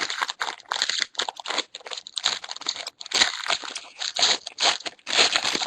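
A trading card pack wrapper being torn open and crinkled by hand: a run of irregular crackles and rustles.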